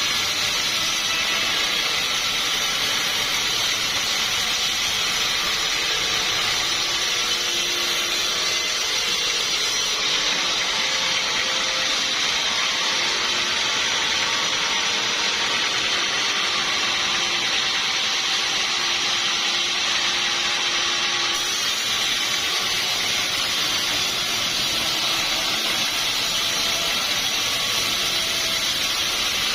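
Sawmill saw running steadily through the whole stretch, a continuous high hissing whine with no break or change in level.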